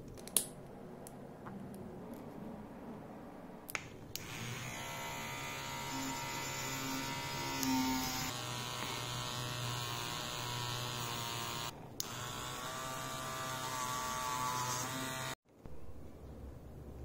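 A sharp click near the start, then a small hand-held rotary tool with a thin abrasive disc runs with a steady high whine for about eleven seconds, taking the enamel off the magnet-wire ends of a rewound fan stator. The whine drops out briefly once and then cuts off suddenly.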